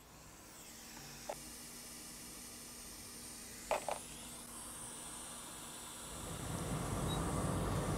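Hot air rework station blowing on a logic board chip to melt its solder for removal, a steady hiss that grows fuller and louder near the end. Two small clicks come through it.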